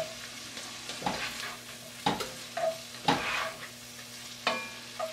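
A spoon stirring chopped onion and garlic in a cast-iron Dutch oven, scraping and knocking against the pot about once a second, with a soft sizzle of the onions frying underneath. The last stroke, near the end, rings briefly.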